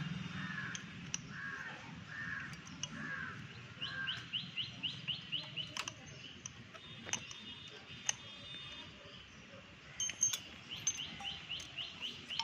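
Birds calling: one bird repeats a short call about twice a second, then twice a quick run of rising chirps, with a few sharp clicks in between.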